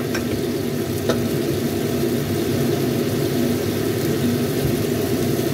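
Chicken in tomato sauce simmering in a wok on a gas stove, under a steady low rumble, with a faint click about a second in.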